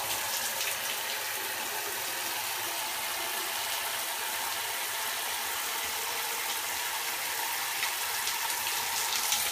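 Shower spray running steadily, an even rush of falling water with no breaks.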